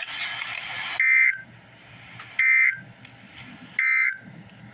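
A loud hiss that cuts off about a second in, then three short, loud, buzzy two-tone data bursts about a second and a half apart: the Emergency Alert System end-of-message code, sent three times to close the alert.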